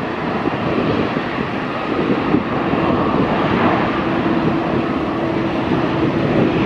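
Jet engines of a Cathay Pacific Airbus A330 airliner, a steady noise as it comes in low and touches down, with a steady hum joining about halfway through.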